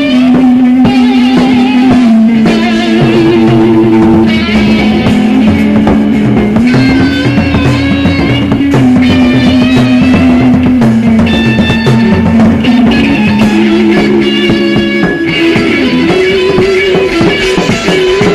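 Raw, unmixed improvised rock jam: guitar holding long sustained notes that step to a new pitch every second or two, over a drum kit.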